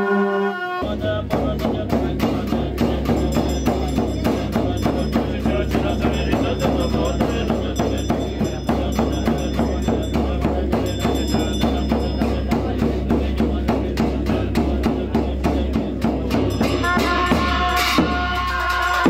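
Tibetan Buddhist ritual music: conch shell horns break off under a second in, and a large frame drum (nga) and cymbals take up a fast, steady beat over a low drone. Near the end the reedy gyaling shawms come in.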